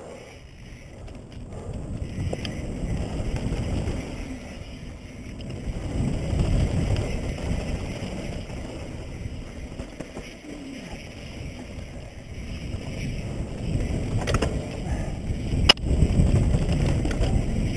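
Mountain bike descending a dirt trail at speed: wind rumbling on the helmet-mounted camera and tyres rolling over dirt, swelling and easing with the pace. Near the end come two sharp knocks from the bike, the second the loudest.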